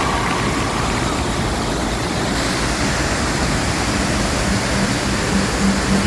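Steady rushing of falling water from a waterfall and its stream. Faint music comes in under it near the end.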